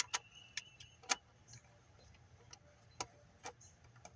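Scattered sharp metallic clicks, about six and irregularly spaced, from bolts and hand tools being worked while the water outlet's bolts are started and tightened into the aluminum head.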